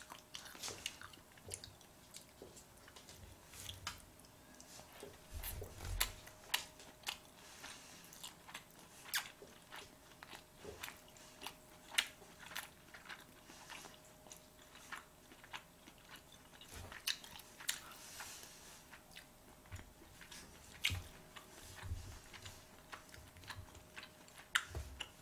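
A person chewing sushi close to the microphone: many small, irregular wet clicks and smacks of the mouth, over a faint steady hum.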